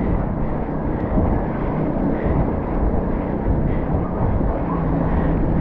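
Wind rushing over an action camera's microphone on a moving mountain bike, a steady low rumble, with the bike's tyres rolling on a concrete road.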